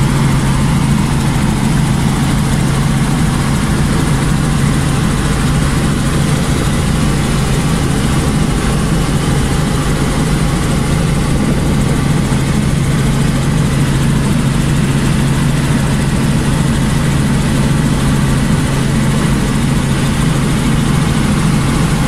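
Small helicopter in flight heard from inside the cabin: the engine and rotor give a loud, steady drone with a strong low hum under a constant rushing noise.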